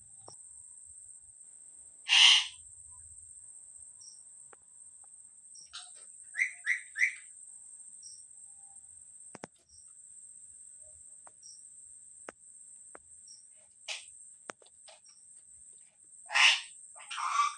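Parrot calling in short, sharp squawks: one loud call about two seconds in, three quick chirps a few seconds later, and two more loud calls near the end.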